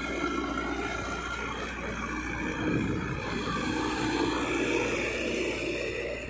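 Caterpillar 424B backhoe loader's diesel engine running steadily.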